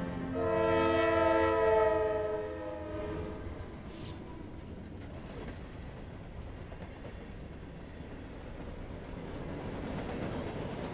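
Train horn sounding a held chord of several notes for about three seconds, then the steady rumbling noise of a train rolling past, growing a little louder near the end.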